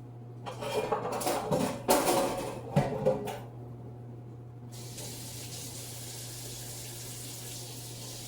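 Dishes knocking and clattering in a kitchen sink for a few seconds, then the tap turned on and running steadily from about five seconds in.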